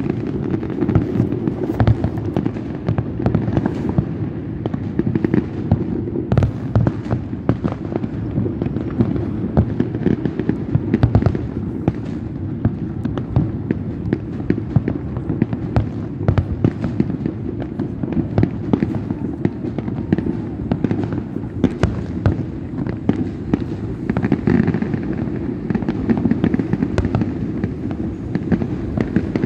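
Fireworks display: a dense, unbroken run of bangs over a steady low rumble.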